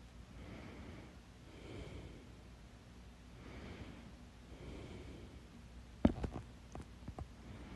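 A person breathing audibly between hiccups: several slow, airy breaths, then one sudden sharp hiccup about six seconds in.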